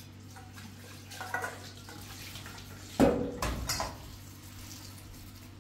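Dishes and water being handled: a few light clinks, then a loud knock and clatter of pots about three seconds in, over a low steady hum.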